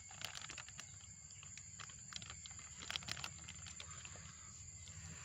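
Faint outdoor ambience: a steady high-pitched insect drone, with scattered small clicks and rustles, a few close together about three seconds in.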